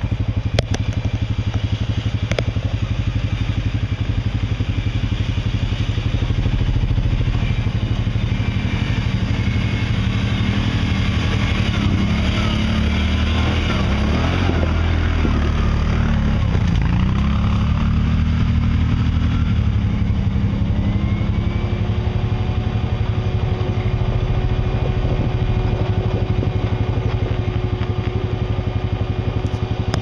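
Side-by-side UTV engine running steadily at low revs on a steep downhill trail. Its pitch wavers and dips about halfway through, and a steady higher whine joins for the last third.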